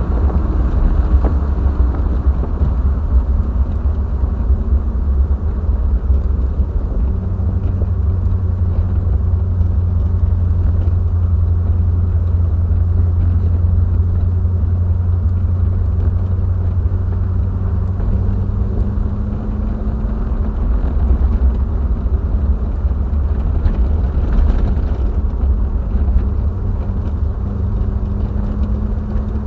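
Triumph TR7's 4.6-litre V8 engine cruising on the road with steady low road rumble. The engine note climbs slowly, eases back, then climbs again near the end.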